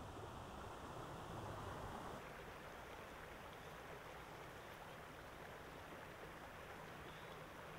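Shallow stream water running steadily over a rocky bed, a faint, even rush.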